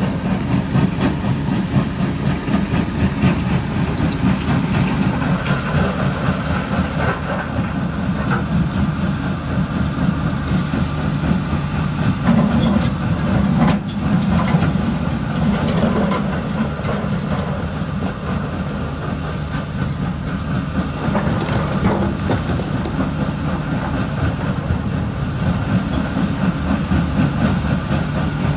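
Mobile rock crusher crushing blasted stone: a continuous grinding and clattering of rock over the steady rumble of diesel engines, including the Volvo tracked excavator feeding it.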